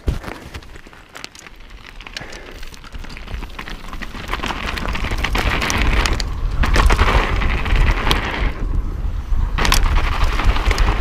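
Mountain bike descending a trail: tyres rolling over dirt, gravel and snow with many small clicks and rattles, under wind buffeting the camera microphone. The rumble and wind noise grow steadily louder as the bike picks up speed.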